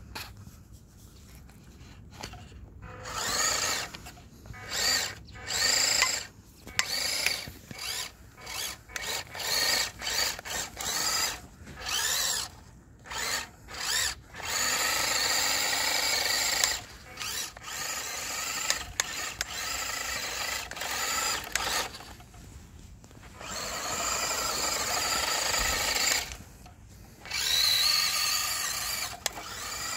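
Electric motor and gearbox of a WPL 1/10 Suzuki Carry RC truck whining under throttle as its rear-drive wheels spin for grip in snow. Many short blips, rising and falling in pitch, in the first half, then longer steady runs.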